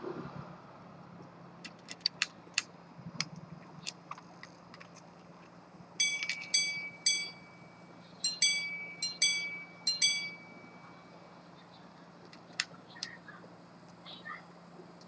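Antique minute-repeater pocket watch striking on its gongs: three ringing strikes, a short pause, then five more in quick succession, each chime ringing on briefly. Scattered sharp clicks of the movement come before and after the chimes.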